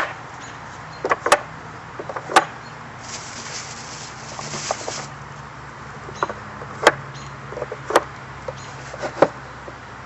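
Irregular sharp knocks and clacks, as of wooden rack parts and tubes being handled and set together, with a brief rasping hiss about three seconds in and a low steady hum underneath.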